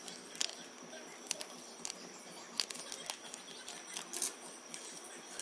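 Plastic mayonnaise packet crinkling as it is squeezed out over a glass bowl: faint, irregular crackles every second or so.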